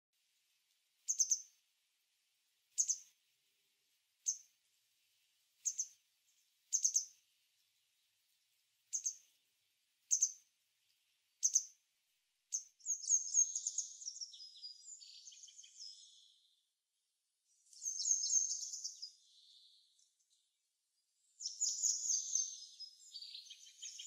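Small songbirds calling: about eight short, high-pitched call notes spaced roughly a second and a half apart, then from about halfway through, bursts of fast, high twittering.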